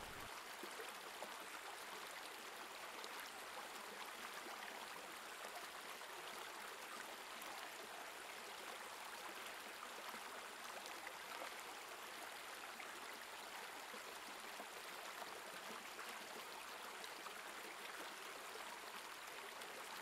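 Shallow stream running over rocks and pebbles: a steady, even rush of water.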